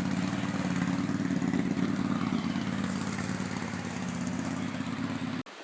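Can-Am Outlander Max LTD ATV engine running steadily; it cuts off abruptly about five seconds in.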